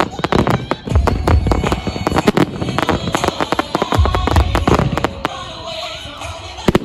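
Aerial firework shells bursting overhead: a dense, rapid crackle of many small bangs, with deep booms about a second in and again around four seconds. The crackle thins out after about five seconds, and a couple of sharp bangs come near the end.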